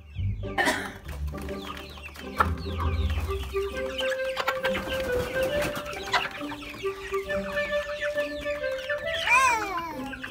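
A flock of brown hens clucking, many short clucks overlapping, with one louder rising-and-falling cry about nine seconds in.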